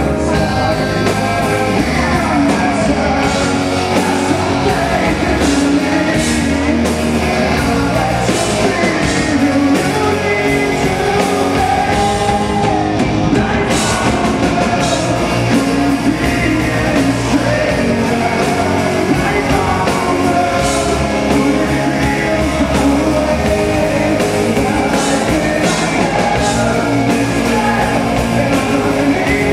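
Live rock band playing: a male lead voice singing over electric guitar, bass and drums, heard from the crowd.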